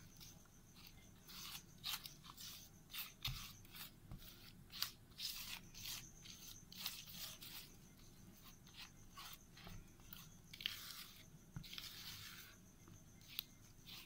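Silicone spatula stirring a thick cream-and-mayonnaise dressing and scraping it around a bowl: faint, irregular short scrapes and rubs.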